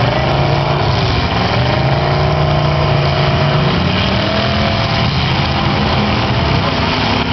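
Several demolition derby cars' engines running loud and revving, their pitch rising and falling over and over.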